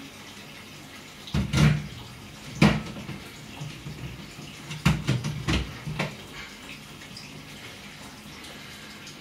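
A blender jug knocking against the soup pot and then being set back on its base: a few hard knocks about one and a half to three seconds in, and another cluster about five to six seconds in, over a steady watery hiss.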